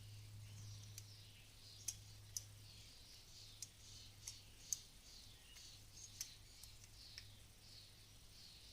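Faint, irregular light clicks of small metal carburetor parts and tools being handled and set down during disassembly, over a low steady hum.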